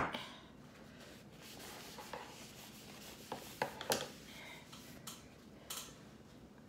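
A sharp click, then faint rubbing and rustling with a few light taps around the middle and one near the end: tableware and food being handled while eating.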